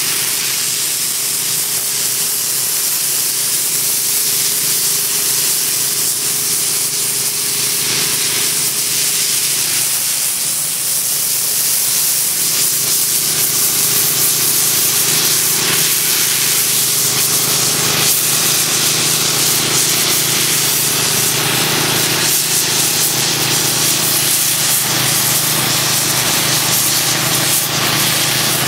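Steady, loud hiss of a KM Crackjet II hot compressed-air lance blasting into an asphalt crack to clean and dry it, with the steady drone of the running machinery underneath.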